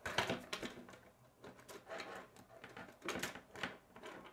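K'nex plastic rods and connectors clicking and rattling as pieces are handled and pressed together: a string of small, irregular clicks, busiest near the start and about three seconds in.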